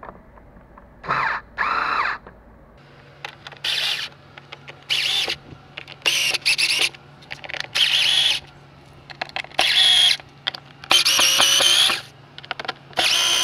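Cordless electric screwdriver running in about a dozen short whining bursts as it backs out the air filter housing screws one by one.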